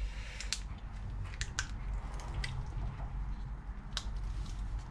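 Assembly grease being worked onto brake parts by hand: faint squishing with scattered small clicks over a low steady hum.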